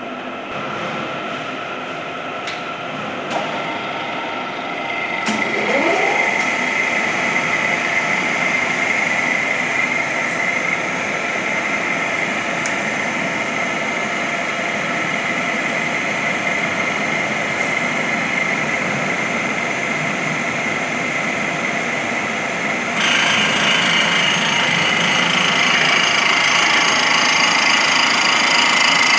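Cylindrical grinding machine running with a steady mechanical hum and a high whine. About five seconds in, a rising tone sounds as a motor spins up and the sound gets louder. About two-thirds of the way through, a louder hiss suddenly joins and stays.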